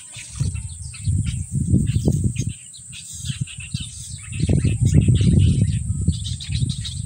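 Birds chirping over a steady high insect buzz, broken twice by spells of loud low rumbling noise on the microphone.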